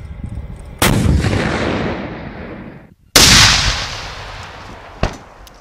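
Heavy cannon fire from a Piranha armoured vehicle's turret gun and rounds exploding on target: a loud blast about a second in that rolls away over about two seconds, a second loud blast about three seconds in with a long rolling decay, and a smaller sharp crack near the end.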